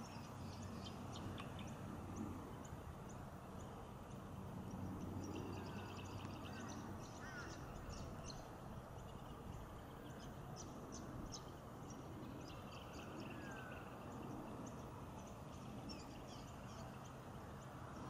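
Faint, steady low drone of a distant Bombardier Dash 8-Q400 turboprop on approach, with small birds chirping and twittering over it.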